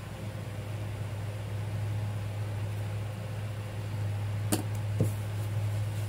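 A steady low hum fills the room, with two light clicks about half a second apart, roughly four and a half seconds in, as a paintbrush is set down on the table.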